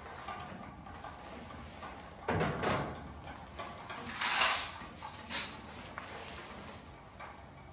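A small metal wall-mounted display frame being worked with a hand tool: a knock about two seconds in, then a longer sliding scrape and a short scrape a moment later.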